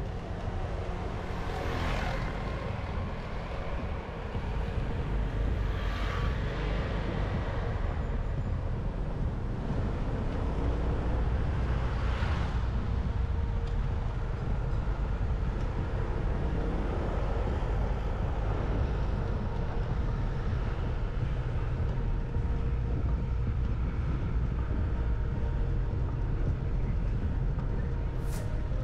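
Steady low road and engine rumble of a vehicle driving through city traffic, with a few brief hissing swells about 2, 6 and 12 seconds in.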